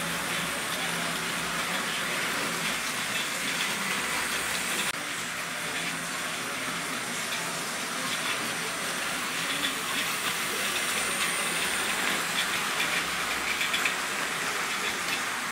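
Model railway trains running on sectional track: a steady whirring hiss of small electric motors and wheels rolling over the rails, with faint fine clicking.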